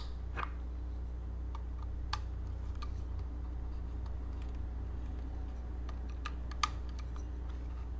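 Light scattered clicks and taps of a small screwdriver and wire ends being worked into the plastic screw-terminal block of a temperature controller, with a couple of sharper clicks, over a steady low hum.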